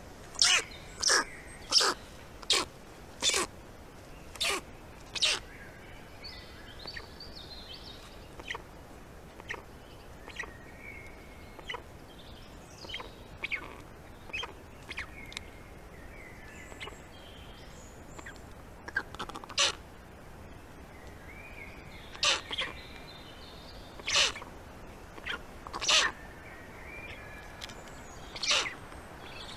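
Black stork chicks giving short, harsh, wheezing begging calls at the nest. The calls come about once a second for the first few seconds, thin out, then come again in a run in the second half. Faint songbird song sounds in the gaps.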